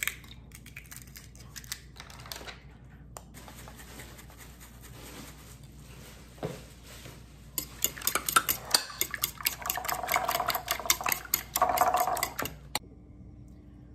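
Eggs being cracked and then beaten with a metal fork in a glass baking dish: a few shell cracks and taps at first, then the fork swishing through the eggs and clinking against the glass several times a second, stopping abruptly near the end.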